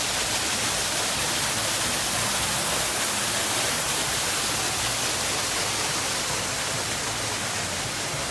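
Small waterfall splashing down artificial rockwork in a steady rush of water, easing slightly near the end.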